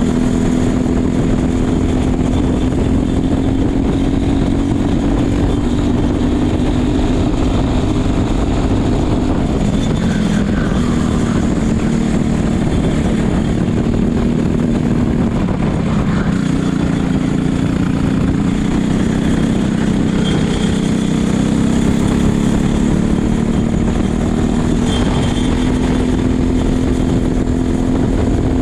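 Racing kart's single-cylinder engine under power, its pitch climbing steadily along the straights and falling three times as the driver lifts for corners, with wind noise on the helmet microphone.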